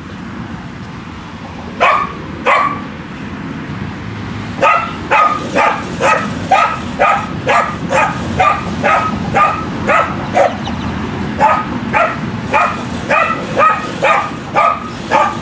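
A corgi barking repeatedly at a push reel lawnmower: two barks about two seconds in, then a steady string at about two barks a second. Under the barks runs the steady whirring rattle of the reel mower's blades being pushed through the grass.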